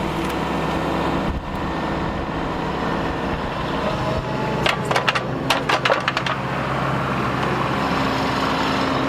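Bobcat mini excavator's diesel engine running steadily while digging, with a quick series of sharp metallic clinks and clanks about halfway through.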